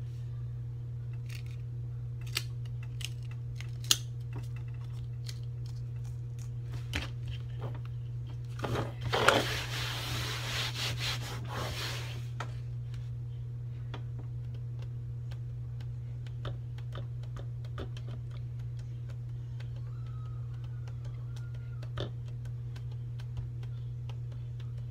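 Hands handling and folding printed card-stock passes: scattered light taps and clicks, and one rasping rub of paper lasting about three seconds, starting about nine seconds in. A steady low hum runs underneath.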